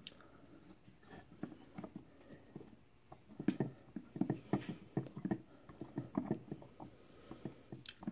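8-32 tap turned by hand in a tap handle, cutting threads into a hole in a soft metal tube: a run of small, irregular clicks and creaks, busiest in the middle.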